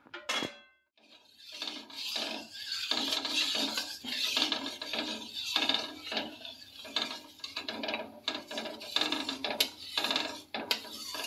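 A long metal spatula scraping the bottom of an aluminium kadai as it stirs milk being heated, in irregular rasping strokes. A short metallic clink comes at the very start.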